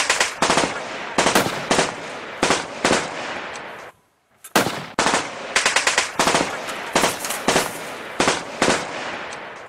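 Repeated bursts of automatic gunfire, broken by a short silent gap about four seconds in before firing resumes.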